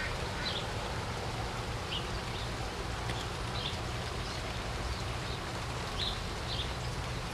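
Outdoor garden ambience: a steady hiss with a low rumble, and a small bird giving short, high chirps about every second or so.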